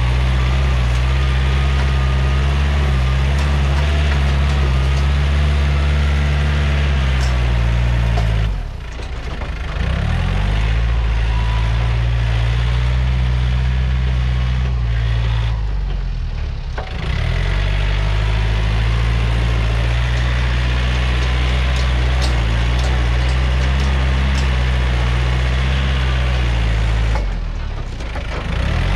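Yanmar EF514T tractor's diesel engine running hard while pushing soil. Its note sags and climbs back three times: about a third of the way in, just past halfway, and near the end.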